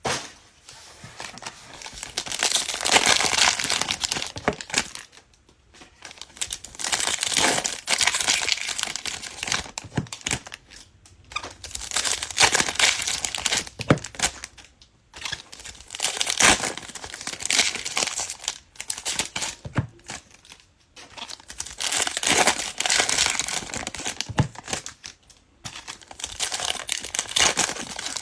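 Foil trading-card pack wrappers being torn open and crumpled, in repeated crinkling bursts a few seconds apart, as packs of 2021 Panini Contenders Football cards are opened.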